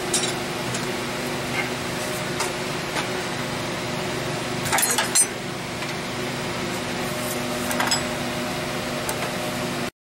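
A second air compressor running steadily, a constant hum, under sharp metal clinks of wrenches against the pipe fittings and the tools laid on the compressor, the loudest pair about five seconds in and another about eight seconds in. The sound cuts off abruptly just before the end.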